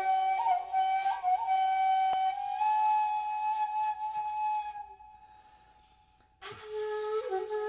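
Slow solo flute melody. A few short ornamented notes lead into a long held note, which fades to near silence about five seconds in; a new phrase begins about a second and a half later.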